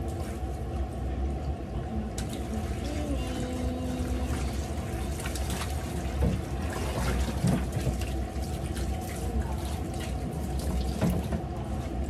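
Kitchen tap running a thin stream into a metal sink and a large pot while it is scrubbed with a sponge, with occasional knocks of the pot against the sink.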